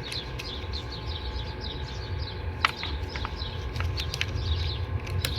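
Small birds chirping over and over over a steady low hum, with a few sharp clicks scattered through.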